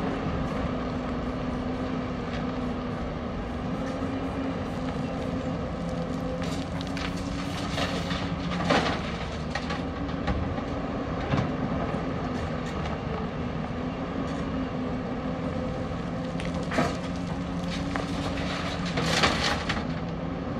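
Hyundai 210LC crawler excavator's diesel engine running steadily with a constant hum. Several sudden clattering crashes of rock and soil hit the steel dump-truck bed, the loudest near the end.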